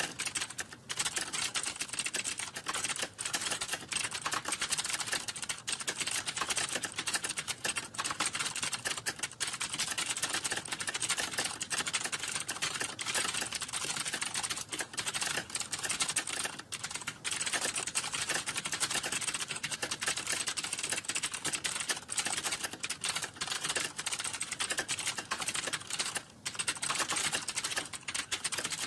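Computer keyboard being typed on fast and without let-up, a dense stream of key clicks with only a few short pauses.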